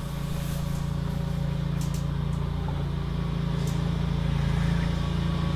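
An engine running steadily with a low, even hum that grows slightly louder.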